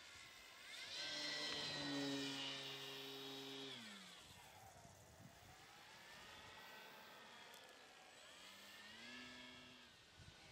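Brushless electric motor and propeller of a radio-controlled model airplane in flight, a whine that rises about a second in, holds, then drops steeply around four seconds in. It climbs again and falls away near the end.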